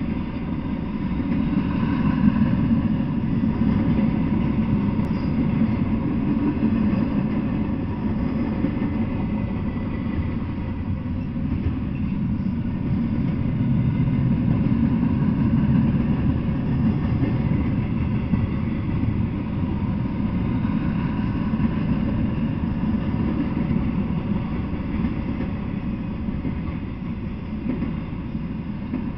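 Intermodal freight train rolling past: the steady low rumble of railcar wheels on the rails, unbroken throughout, with faint higher tones over it.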